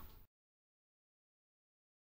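Silence: a faint fading tail dies out within the first quarter second, then the audio drops to complete digital silence.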